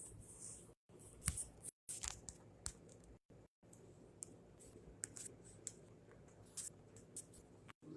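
Faint, scattered light clicks and taps, the sharpest about a second in, over quiet room noise that cuts out to silence now and then.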